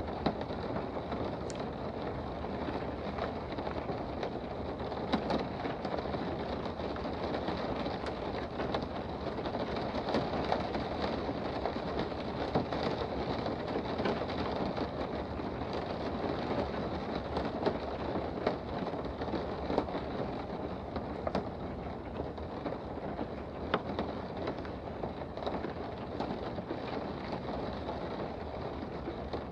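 Steady rain heard from indoors, an even patter with a few louder single drops ticking now and then.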